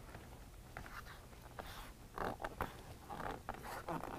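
Faint rubbing and scraping of hands pressing a plastic in-channel vent visor into the rubber window channel of a truck door, with several short scuffs in the second half.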